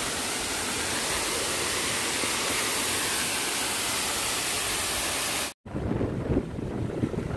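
A waterfall rushes with a steady, even sound of falling water. About five and a half seconds in it cuts off abruptly, and uneven wind buffeting on the microphone follows, over small waves washing against shore rocks.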